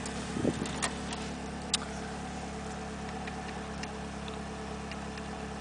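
A car's dashboard CD player taking in a disc: two sharp clicks about one and two seconds in, then a few fainter ticks, over a steady low hum.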